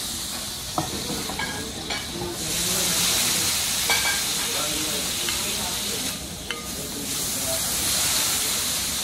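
Food sizzling on a hot teppanyaki steel griddle, with a loud hiss of steam off the plate that dips and swells again, rising near the end as liquid is poured from a bottle onto the hot steel. A metal spatula clicks against the griddle a few times.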